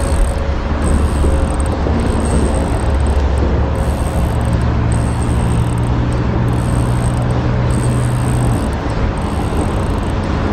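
Steady road traffic rumble. One vehicle's low engine hum stands out from about four and a half to eight and a half seconds in.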